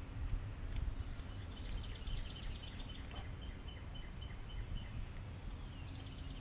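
A bird chirps in a quick run of short high notes, about four a second, with a short falling note near the end, over a steady low outdoor rumble.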